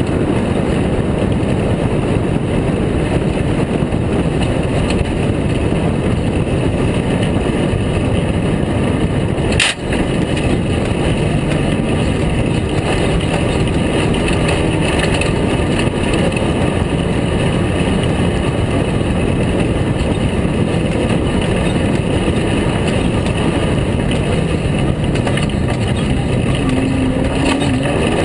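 Air-cooled VW engine of a Class 5 Baja Bug running steadily at speed over a dirt road, heard from an onboard camera as a dense roar mixed with wind and road noise. There is a brief click and a short drop in level about ten seconds in.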